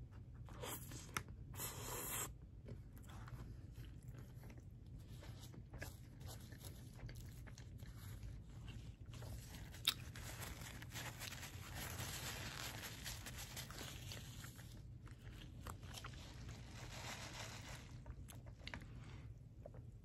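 Biting into and chewing a chili cheese dog, with wet mouth sounds. About ten seconds in a paper napkin rustles against the mouth as it is wiped.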